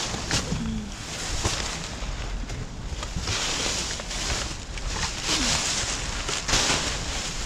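Plastic trash bags rustling and crinkling as they are pushed aside and handled, in several louder crackly stretches with a few small clicks, over a low rumble.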